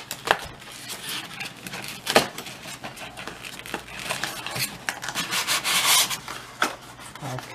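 Hands rubbing and scraping against cardboard box flaps and plastic packaging while unpacking, with two sharp taps, one just after the start and one about two seconds in, and a longer stretch of scraping near the end.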